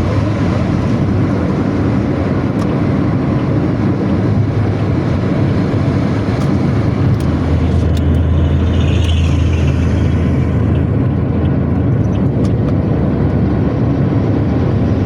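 Intercity bus engine with a growling exhaust running at highway speed: a steady low rumble mixed with road noise.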